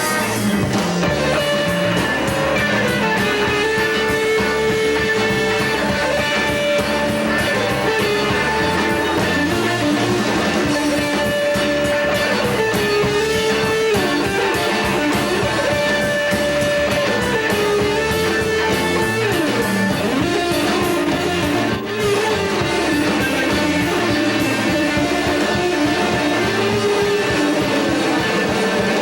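Rock music: electric guitars over bass and drums, with held notes that bend between pitches and a brief dip about 22 seconds in.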